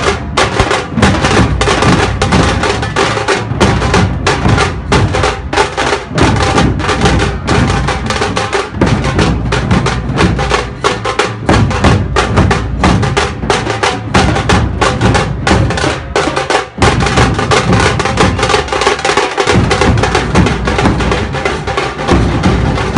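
A group of large rope-tensioned dhol drums beaten with sticks together, loud, in a fast, dense, unbroken drumming rhythm.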